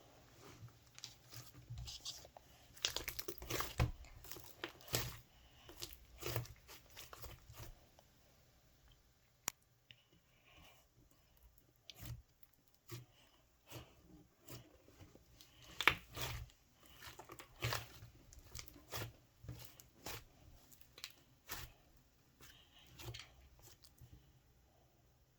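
Slime being squeezed and stretched by hand, giving irregular crackling, crunching and tearing sounds, busiest in the first few seconds and again about two-thirds of the way through.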